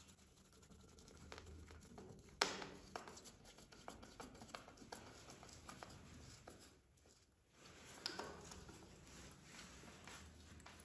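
Faint clicks and scraping of a hand screwdriver turning small screws into a laminate flooring strip, with one sharper click about two and a half seconds in.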